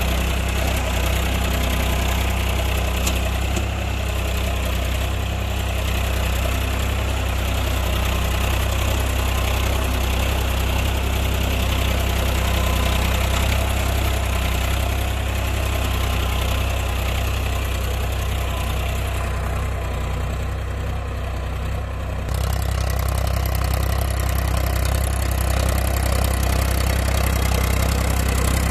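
Powertrac Euro 50 tractor's three-cylinder diesel engine running steadily under load while pulling a mouldboard plough through the soil.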